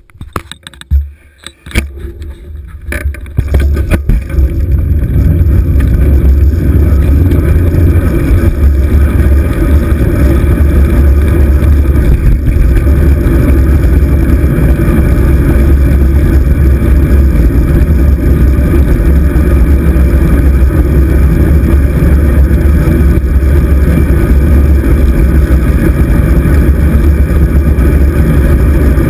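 Wind buffeting the microphone of a handlebar-mounted GoPro Hero 2 on a moving road bike: a loud, steady low rumble. A few knocks sound in the first few seconds, and the rumble builds up about three to four seconds in.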